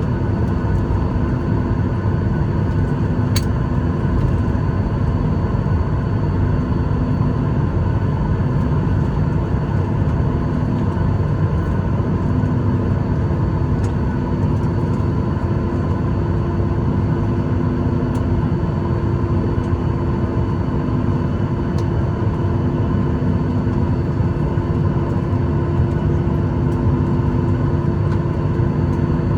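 Steady cabin rumble of a jet airliner taxiing after landing, its engines running at idle, with a few faint clicks.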